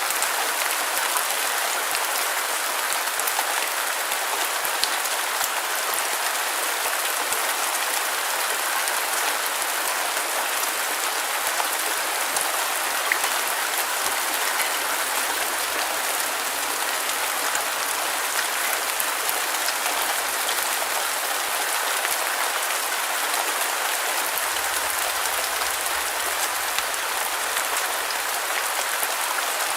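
Steady rain falling on a surface: an even hiss with a dense patter of tiny drop ticks.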